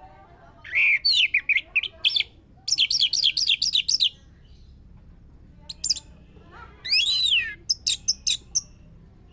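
Orange-headed thrush singing: high, varied whistled phrases of quick rising and falling notes, with a fast run of repeated notes, broken by short pauses.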